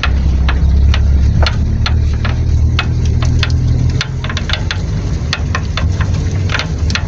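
Chevrolet Corsa running with a steady low hum, over which come irregular sharp knocks and clicks, several a second at times. The knocking is typical of a worn-out (blown) rubber bump stop on the rear shock absorber.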